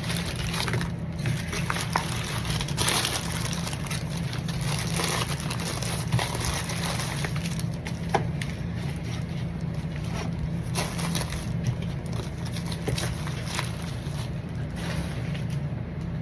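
Paper and plastic packaging rustling and crinkling, with scattered sharp clicks, as a mailed package of trading cards is opened, over a steady low hum.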